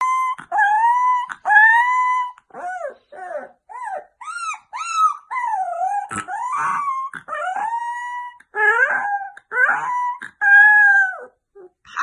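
Two Siberian husky puppies howling together: a long string of short, high howls and yips, each under about a second, that rise and fall in pitch and overlap one another.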